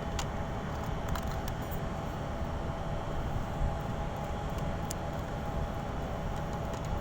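Steady low rumble of a ship's machinery, with a faint steady hum above it and a few light clicks.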